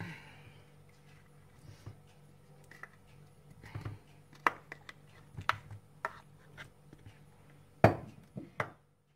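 Scattered light taps and soft knocks as tomato pieces are placed by hand from a glass bowl onto raw chicken thighs in two glass baking dishes, with one louder knock near the end.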